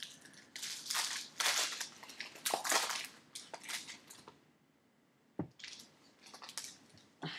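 Foil wrapper being torn and crinkled off a trading-card pack in a run of crackling rustles, then a single knock about five seconds in as the stack of cards is set down, followed by light handling sounds.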